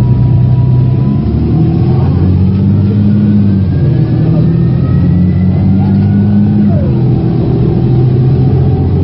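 Van Hool A330 city bus accelerating hard at full kickdown: the engine pulls under load while the ZF automatic gearbox whine rises in pitch, and the drop about seven seconds in marks a gear change.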